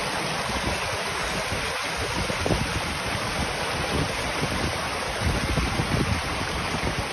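Small rocky woodland stream running and splashing over stones: a steady rush of water, with gusts of wind rumbling on the microphone.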